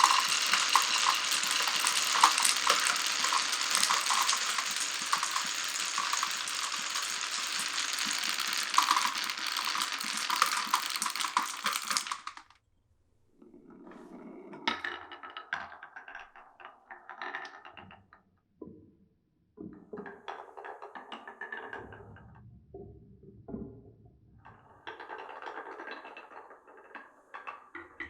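Many glass marbles rolling and clattering down wooden marble-run tracks in a dense, continuous rattle full of clicks, which cuts off abruptly about twelve seconds in. After that come shorter, sparser runs of a few marbles rolling and clicking along the track.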